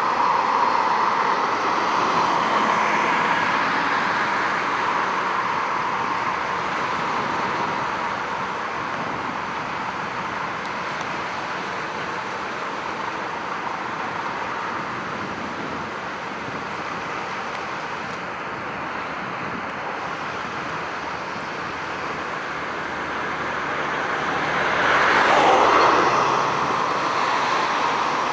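Steady hum of road traffic, with one vehicle passing louder, swelling and fading, near the end.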